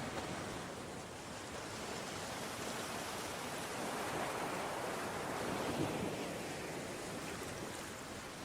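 Ocean surf: a continuous wash of waves that swells gently and eases off again, with some wind noise.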